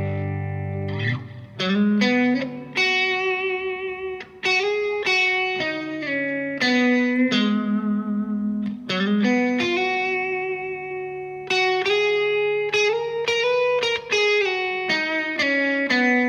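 Maybach Teleman T61 electric guitar played through a tube combo amp: a chord dies away, then about a second in a melodic lead line of picked single notes begins, several of them held and ringing.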